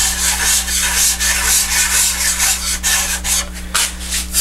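A small model maker's file, its teeth ground smooth, scraping along the edge of a spruce guitar top in quick repeated inward strokes, cutting away fuzz of lifted grain at the routed binding channel. The strokes come in rapid succession, with a few separate strokes near the end.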